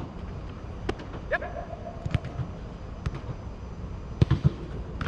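Several sharp thuds of a soccer ball being struck, saved and hitting artificial turf in goalkeeper shot-stopping, the two loudest close together about four seconds in.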